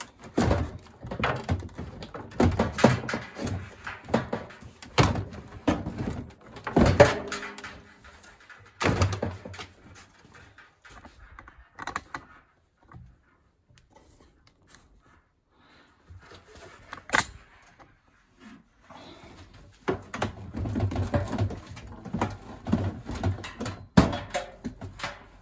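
Knocks, clunks and rattles of hands working on a tumble dryer's opened cabinet and parts. They come in busy bursts with a quieter spell in the middle and a few sharp single knocks.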